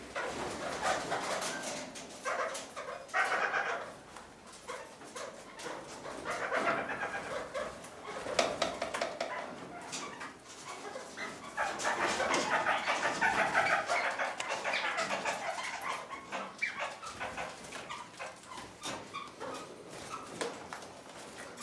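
Kakariki (red-crowned parakeets) chattering in repeated bursts of calls, busiest about halfway through, with many short sharp clicks among them.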